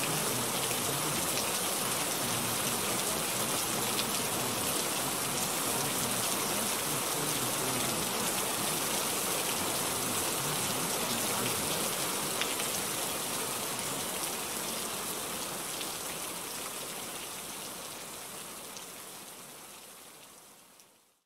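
Steady rain-like rushing noise, the masking bed of a subliminal affirmation track, with faint scattered ticks. It holds steady, then fades slowly away over the second half.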